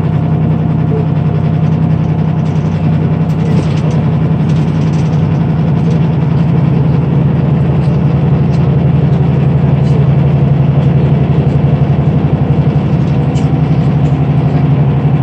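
Cabin sound of a 2009 Granbird Sunshine coach cruising: its Powertec 425 PS straight-six VGT turbo diesel drones steadily at a constant pitch under road and tyre noise.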